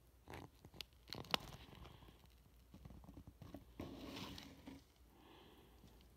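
Faint scattered clicks and taps with soft rustling, the sharpest click about a second and a half in and a longer rustle near the middle.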